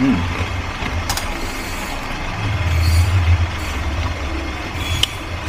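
Low engine rumble of a vehicle outside that swells for about a second midway, with two short sharp clicks, one about a second in and one near the end.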